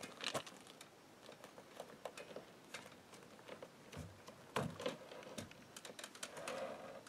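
Scattered light clicks and knocks from a plastic Galaxy Whaoo fishing kayak being shifted and pushed against a roof-mounted kayak cart, with a few duller thumps about four and a half seconds in.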